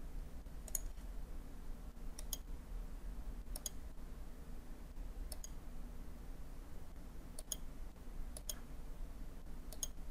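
Computer mouse clicks, about seven sharp separate clicks spaced a second or two apart, over a faint steady low hum.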